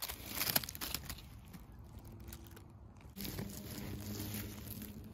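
Dry pine needles and twigs crackling and rustling under a gloved hand as it pushes through the forest-floor litter, loudest in the first second. A faint steady hum comes in about three seconds in.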